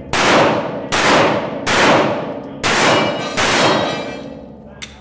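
Semi-automatic pistol fired five times at a steady pace, a shot about every second, each crack trailing a long echo off the concrete walls of an indoor range.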